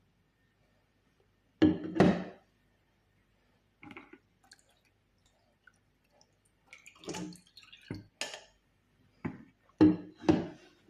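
Kitchenware being handled: a series of separate knocks and clinks with a short ring, the loudest pair about two seconds in and more near the end.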